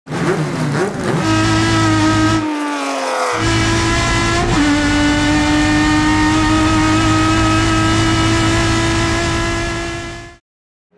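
A TC Bonaerense race car's 4-litre six-cylinder engine revving, then holding high, steady revs. The pitch dips about three seconds in and steps down at about four and a half seconds. It cuts off suddenly near the end.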